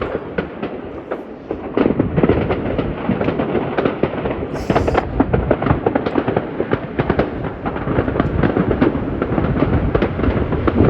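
A dense barrage of fireworks going off across a city, many bangs and pops overlapping without a break, with a brief high hiss a little before the middle.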